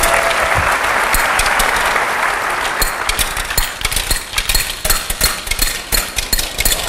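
An audience cheers and applauds, fading out over the first three seconds. Under it, a stream of rapid, irregular, sharp clicks builds and carries on: steel ball bearings from the sorting machine, run sped up, dropping and being knocked by the rotary-stage deflector into the bins.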